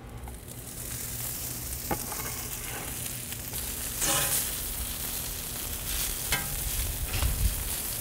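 Chopped brisket sizzling steadily on a hot oiled griddle plate as it goes on, with a few sharp clicks and scrapes of a metal grill fork turning the meat.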